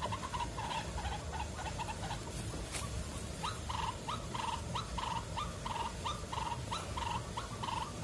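White-breasted waterhen calling: a repeated croaking note, fainter at first, then louder and regular at about two a second from a little past the middle.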